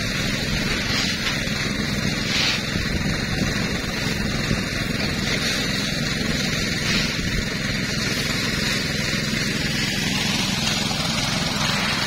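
Small petrol engine of a portable rice thresher running at a steady speed.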